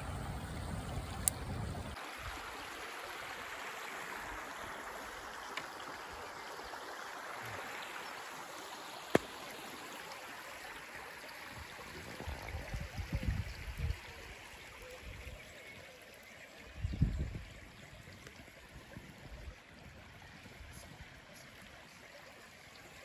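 A small river running steadily with a continuous rushing murmur. A single sharp snap comes about nine seconds in, and a few low rumbling bumps follow in the middle.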